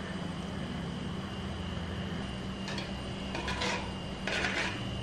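Spoon stirring and scraping chunks of jackfruit and coconut paste in a clay pot: a few short scrapes in the second half, over a steady low hum.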